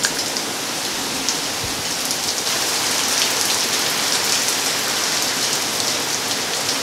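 Heavy rain falling hard and steady: a dense hiss with faint scattered ticks of drops.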